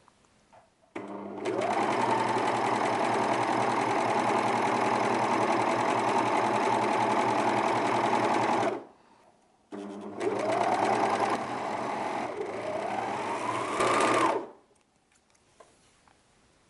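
Juki MO-2000 overlock serger running at speed, sewing a rolled hem. It runs steadily for about eight seconds, pauses for about a second, then runs again for about five seconds, speeding up twice, before stopping.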